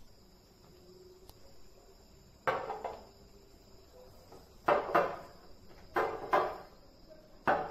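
Stemmed drinking glasses set down on a glass-topped table: about half a dozen sharp glass clinks, mostly in quick pairs.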